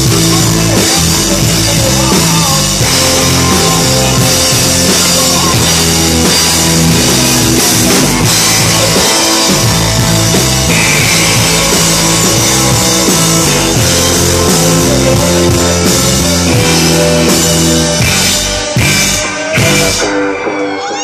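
Live rock band playing loud, with electric guitar, bass and drum kit driving a steady beat. Near the end the song closes on a few hard stop hits.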